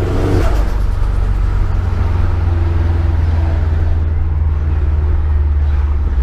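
Turbocharged Subaru Impreza flat-four engine running under way, a steady low drone, with a brief shift in pitch right at the start.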